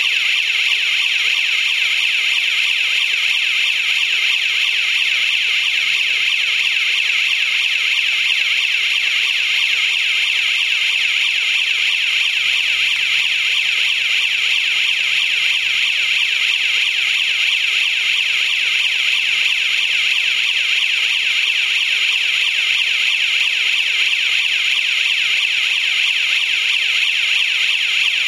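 Built-in electronic siren of a 24 V DC rotating warning beacon sounding continuously: a high-pitched, steady alarm tone with a fast warble.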